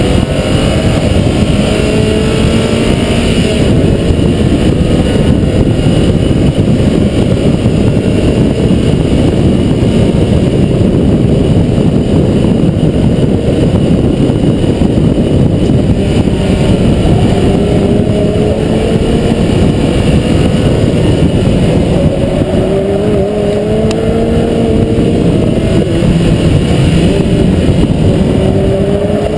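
Mazda MX-5 NB 1.8-litre four-cylinder engine driven hard on track, its pitch climbing in several long rises as it accelerates, under a dense, steady rush of wind and road noise.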